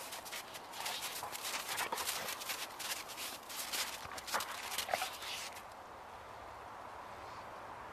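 Two dogs play-wrestling in snow: a quick run of crunching paw steps and scuffling that stops about five and a half seconds in, leaving only faint outdoor hiss.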